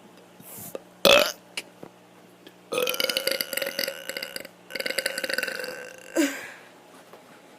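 A kid burping on purpose: a short burp about a second in, then a long drawn-out burp of about three seconds with a brief break in the middle, and a short one near the end.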